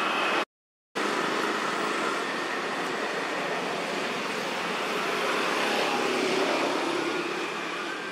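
Steady outdoor background noise, an even rush with a few faint high chirps. It cuts out to complete silence for about half a second near the start.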